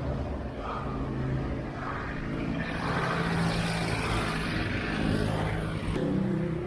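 Road traffic passing close by, engine hum and tyre noise that swell and fade over a few seconds, over a steady low rumble of wind on the microphone of a moving bicycle.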